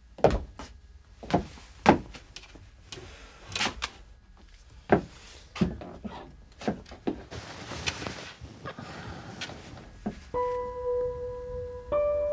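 A run of irregular knocks and thuds, then soft sustained music notes coming in about ten seconds in.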